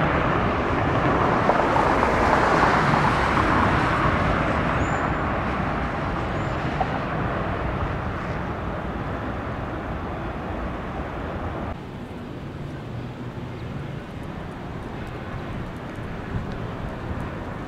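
Jet engines of a Boeing 717 (rear-mounted Rolls-Royce BR715 turbofans) on its takeoff roll: a steady rushing roar, loudest about two seconds in, fading as the aircraft accelerates away. About twelve seconds in the sound drops suddenly to a quieter, steady jet rumble.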